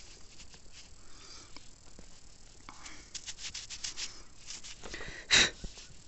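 Gloved fingers handling a dirt-covered coin, with a run of quick light scratching clicks about three seconds in, then one short, sharp breath close to the microphone near the end.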